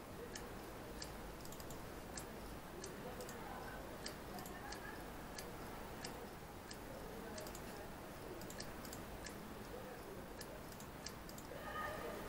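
WD My Passport external hard drive clicking: faint, sharp, irregular ticks a few times a second as the heads fail to settle. The repairer takes this for a head problem, with the heads unable to reach the boot area.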